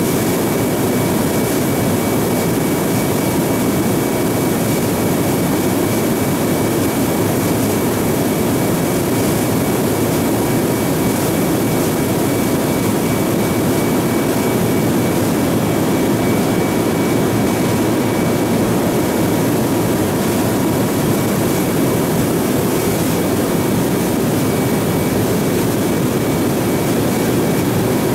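Steady loud engine and airflow noise heard inside the bare cargo hold of a transport plane in flight, a constant drone with a faint steady whine over it.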